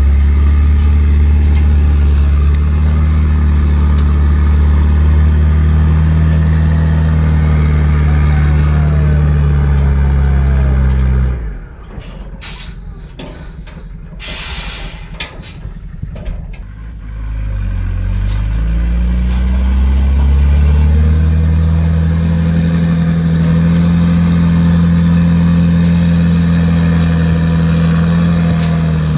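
Heavy truck's diesel engine running hard under load as the timber-laden truck's rear wheels spin on a steep muddy slope without climbing. About eleven seconds in the engine drops back, with a short hiss of air, then revs up again and holds at high revs.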